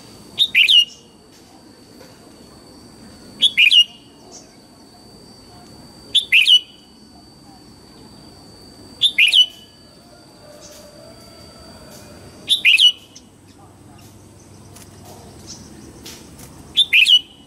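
Red-whiskered bulbul singing six short, loud phrases, one about every three seconds, each a quick falling whistle. A faint steady high tone runs underneath and stops about two thirds of the way through.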